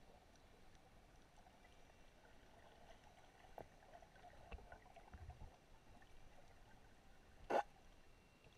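Faint, muffled underwater ambience picked up by a submerged camera, with a few scattered small clicks and a low rumble midway. One short, loud burst of noise comes about seven and a half seconds in.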